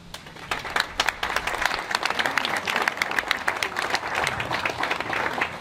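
Audience applauding, many hands clapping densely, thinning out near the end.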